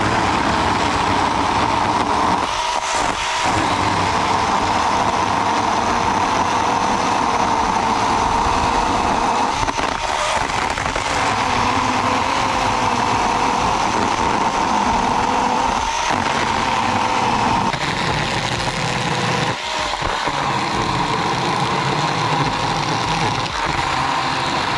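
Parkside 20 V battery-powered chainsaw running under load while cutting wood. Its electric motor and chain give a continuous high whine whose pitch wavers slightly as the chain bites, with a few brief dips.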